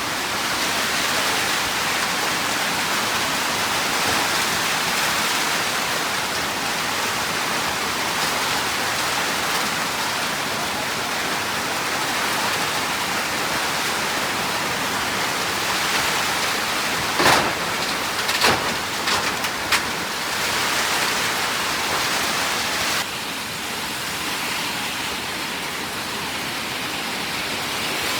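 Heavy rain falling steadily. Several sharp knocks or clatters come through the rain about two-thirds of the way in.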